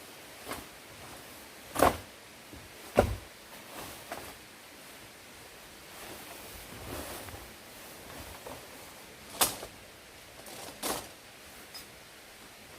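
Objects being handled: a series of irregular sharp knocks and clatters, about six in all, the loudest two close together early and two more later, with soft rustling between.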